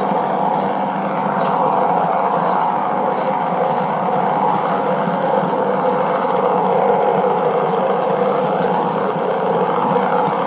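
LGB garden-railway model of a VT 98 railbus running along the track: a steady mechanical drone with a few faint clicks.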